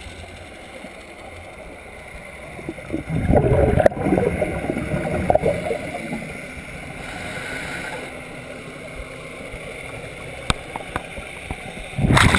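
Scuba diver's exhaled bubbles from the regulator gurgling and rumbling, heard underwater through the camera housing: a loud bout about three seconds in, a quieter lull, a few sharp clicks, and another loud bout starting near the end.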